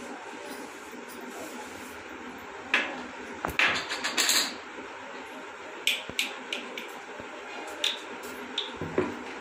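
Plastic bottle caps and a toothbrush being handled against wooden floorboards: scattered light clicks and taps, with a short burst of rattling taps about three and a half to four and a half seconds in, over a steady background hiss.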